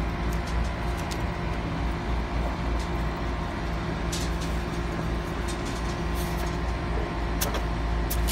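Steady low machine hum, like a motor running close by, with a few light clicks over it.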